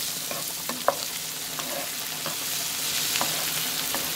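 Diced onions sizzling in oil in a frying pan as they start to brown, stirred with a spoon that clicks and scrapes against the pan several times.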